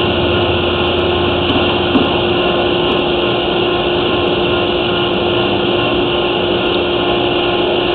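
Steady mechanical hum and hiss with a constant mid-pitched tone running through it, and a low rumble underneath that stops about two and a half seconds in.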